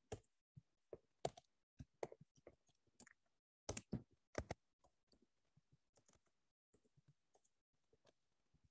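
Computer keyboard typing: faint, irregular key clicks, a few sharper ones in the first half and softer taps later.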